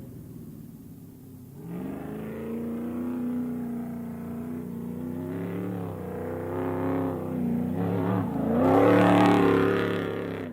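Off-road race vehicle's engine revving hard, its pitch rising and dropping several times as it runs through the gears. It grows loudest about nine seconds in, then fades away.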